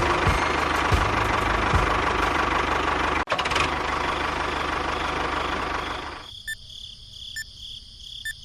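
An engine running steadily, with a momentary cut-out about a third of the way in. About two-thirds in it gives way to a quieter, high, steady whine with faint ticks about once a second.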